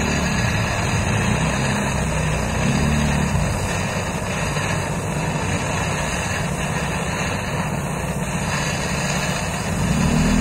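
High-pressure LPG torch burning with a steady rushing noise as it heats a steel-to-steel joint to red for brazing with copper rod.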